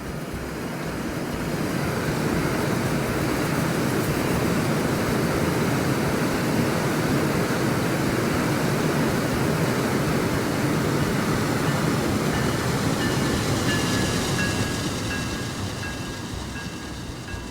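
A passing train: a loud, steady rumble and rush of wheels on rails that builds over the first two seconds, holds, then fades over the last few seconds, with faint thin tones coming in near the end.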